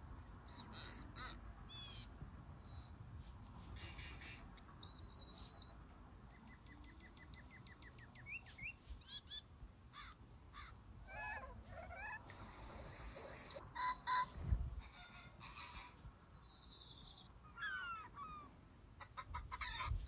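A string of short recorded bird calls of different species played one after another through a tablet's speaker as the pictures are tapped. Some are rapid trills, others single rising or falling notes. A thump sounds about fourteen and a half seconds in.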